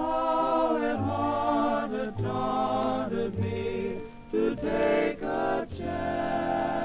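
Background music: a song with sung vocals, the notes changing every half second or so over a low bass line.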